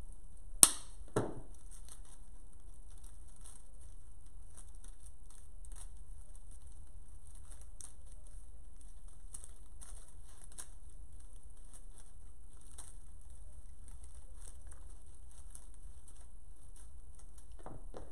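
Faint rustling and light ticking of artificial flower and greenery stems being handled and worked into a floral arrangement, with two sharp clicks about half a second apart near the start, the first much the loudest.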